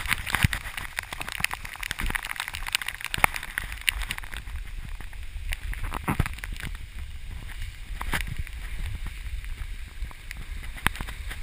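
Handling noise on an action camera's microphone: a steady low rumble with scattered knocks and scrapes as the camera and the climbing gear around it shift.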